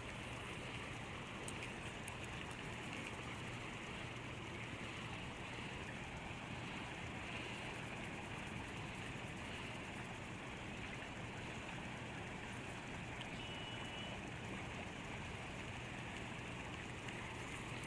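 Faint, steady rush of flowing river water, with a low steady hum underneath.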